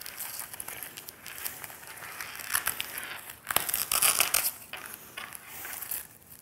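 Hook-and-loop (Velcro) strips and the nylon belt being handled, with scratchy crinkling and short rasps of Velcro pulled and pressed. The loudest, ripping stretch comes about three and a half seconds in.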